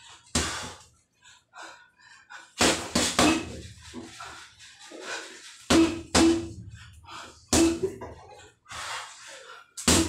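Boxing gloves striking a hanging punching bag: about eight sharp thuds in irregular combinations, several coming as quick pairs.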